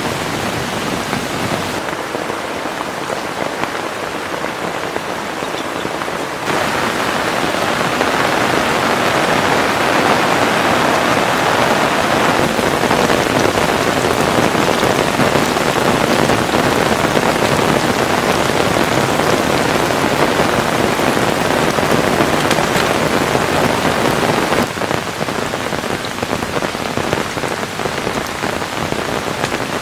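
Heavy rain falling steadily in a downpour. It grows abruptly louder about six seconds in and drops back near the end.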